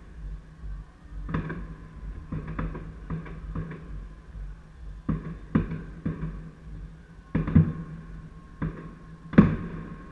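New Year fireworks shells bursting: about a dozen irregular bangs, some in quick pairs, the loudest about nine seconds in.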